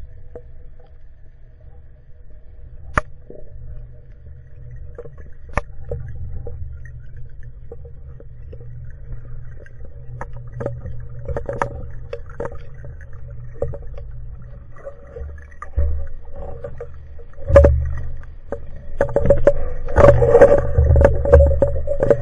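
Underwater sound picked up through a camera housing: a low water rumble with a faint steady hum and scattered sharp clicks, then louder clattering knocks and bubbling through the last five seconds.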